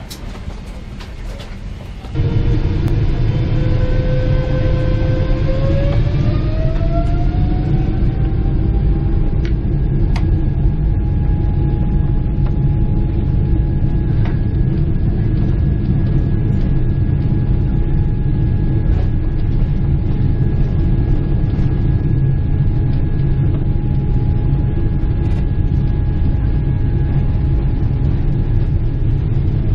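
Boeing 777-300ER's GE90 jet engines heard from inside the cabin: a loud, steady rumble that starts suddenly about two seconds in. A few seconds later a whine rises in pitch, then holds steady.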